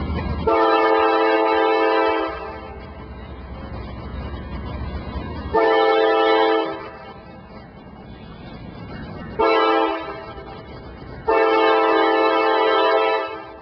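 Norfolk Southern diesel locomotive sounding its multi-chime air horn in the grade-crossing pattern: long, long, short, long. Between the blasts the locomotive's engine and the train's wheels rumble.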